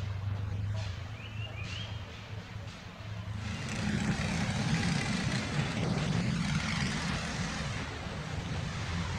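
Motor engine noise: a steady low hum that swells about three and a half seconds in into a louder rushing rumble, as of an engine passing close by.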